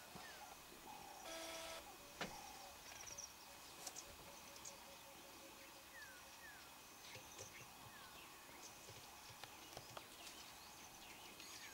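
Quiet outdoor ambience, close to silence, with faint short falling chirps now and then, a brief pitched call about a second and a half in, and a few soft clicks.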